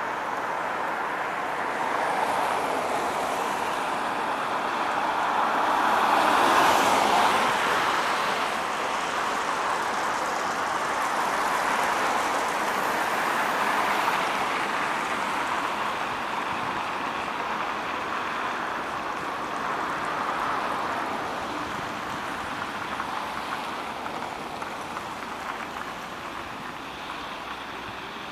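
LVS-86K articulated tram in motion: a steady running noise of wheels on rails. It swells to its loudest about six or seven seconds in, then eases slightly near the end.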